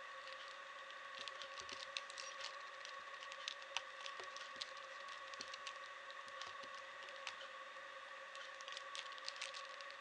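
Plastic Rubik's cube layers being turned by hand: quick irregular clicking and clacking in flurries, over a steady background hum.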